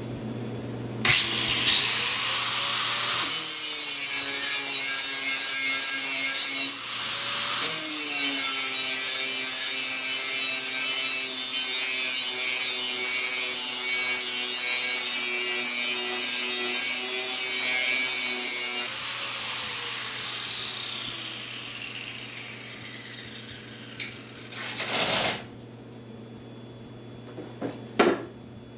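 Angle grinder spinning up and grinding a bevel onto the bottom edge of a steel snow blower scraper blade, with a short break around a quarter of the way in. The motor then winds down with a falling whine, and a few short knocks follow near the end.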